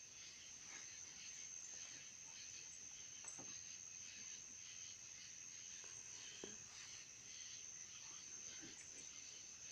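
Faint, steady high-pitched chorus of crickets trilling, with no fireworks going off.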